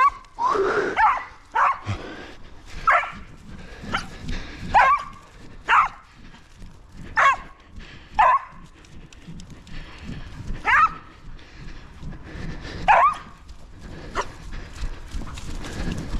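Dog barking repeatedly: about a dozen short, sharp barks, each dropping in pitch, coming a second or two apart with a few longer gaps.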